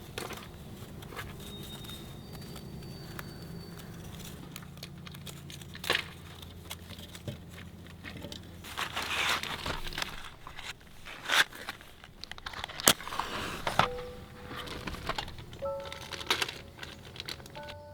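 Crackling and crinkling noises with several sharp pops, over soft background music whose single notes ring out clearly near the end.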